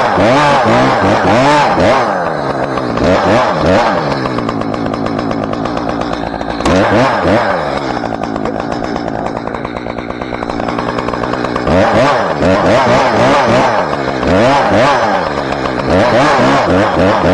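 Two-stroke chainsaw cutting into a spruce trunk, its engine repeatedly revving up and easing off. The revs drop lower for a few seconds midway, then climb back to full speed.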